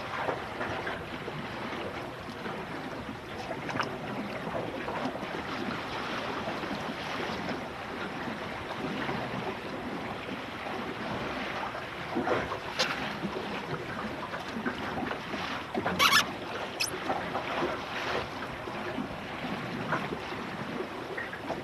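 Water rushing and splashing along the hull of a Finn sailing dinghy under way, with wind on the microphone. A few sharp slaps or knocks stand out about two-thirds of the way through.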